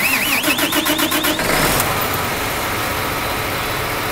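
John Deere 8270R tractor's six-cylinder diesel cranking on its starter, the sound wavering rapidly with each compression stroke, then catching a little under two seconds in and running steadily. It is cranked off a portable jump starter alone, with the tractor's own batteries switched out.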